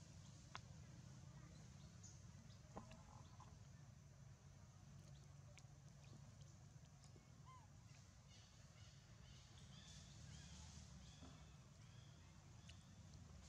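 Near silence: faint outdoor ambience with a low hum, a few soft ticks, and a run of faint, short, high chirps in the second half.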